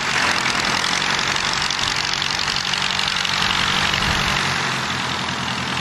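Piston engine of a vintage propeller aircraft running steadily: a low engine drone under a loud, even rushing noise of air. The low drone shifts slightly in pitch about four and a half seconds in.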